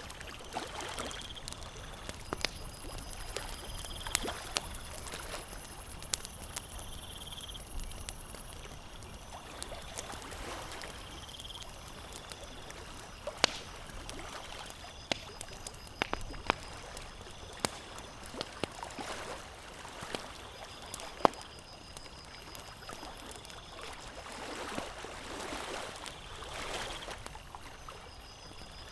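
Campfire crackling with sharp, irregular pops over small lake waves lapping at the shore in soft swells every few seconds. A faint, high pulsing chirp runs in the background.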